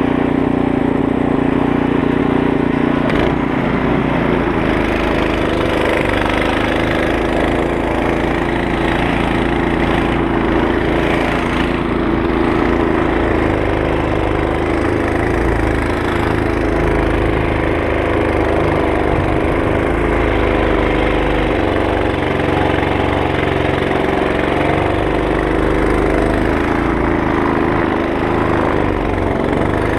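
Poulan Pro 24-inch two-stage snow blower's 208cc Briggs & Stratton engine running steadily while the machine clears deep snow.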